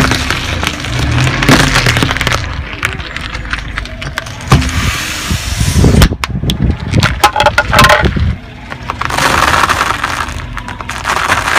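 Car tyre rolling slowly onto objects on asphalt and crushing them: a cucumber squashed at the start, a run of sharp cracks and snaps through the middle, then the dry, dense crackling of blocks of instant noodles breaking apart under the tyre near the end.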